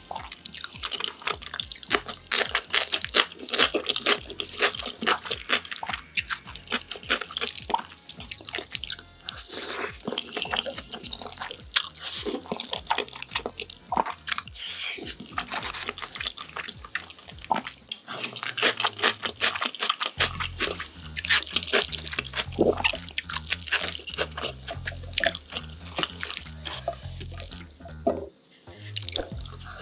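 Jajangmyeon noodles in thick black bean sauce slurped and chewed, making a constant run of wet, sticky mouth clicks and smacks.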